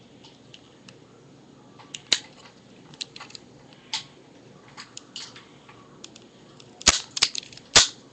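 Black toy cap revolver being cocked and snapped: a run of small clicks from the hammer and cylinder, sharper snaps about two and four seconds in, and two loud snaps near the end about a second apart.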